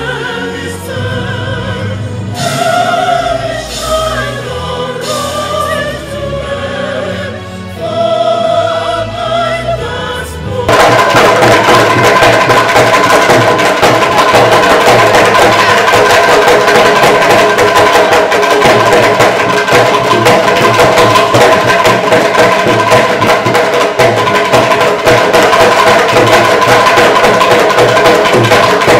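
Voices singing together, then about ten seconds in a sudden switch to very loud, dense, rapid drumming and percussion for a dance.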